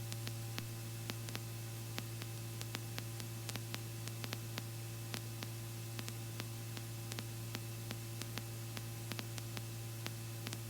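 Cockpit intercom audio line with no one talking: a steady low hum under a hiss of static, with scattered sharp clicks throughout.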